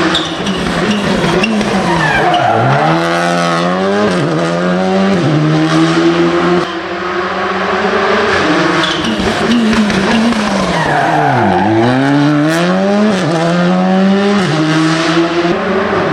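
Rally car engine at high revs on a special stage. The engine note dips low and climbs back twice as the car slows for bends and accelerates away, with quick gear changes stepping the pitch in between.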